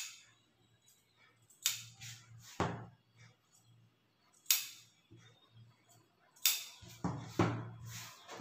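Large steel tailoring shears snipping short notch cuts into blouse fabric at the darts: a string of sharp metallic snips, unevenly spaced, the blades clicking shut each time.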